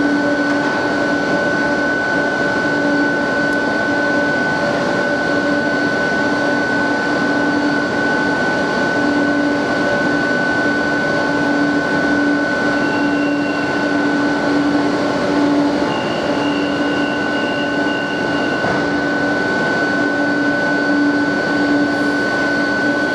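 Metro train standing at the platform with its on-board equipment running: a steady hum with a low tone and a higher whine held throughout.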